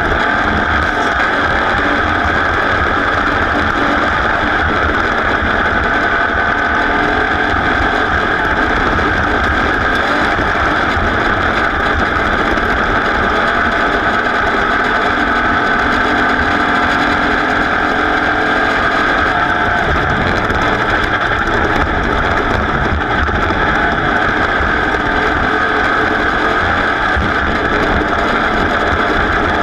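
Off-road race vehicle's engine running hard at a steady pace, heard from onboard together with wind and terrain noise.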